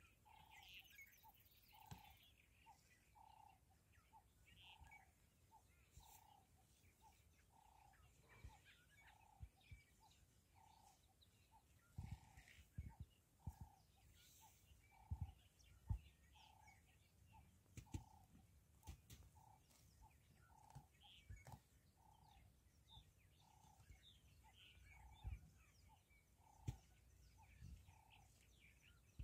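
Faint bush ambience: a bird repeats one short note at a steady pace, other birds chirp now and then, and there are occasional low thumps.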